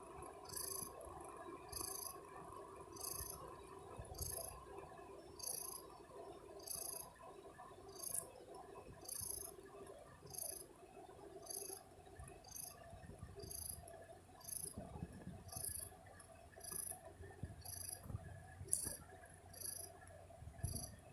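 Siberian cat snoring: faint, high, hissing breath sounds repeating evenly about once every second and a bit, over a faint steady hum.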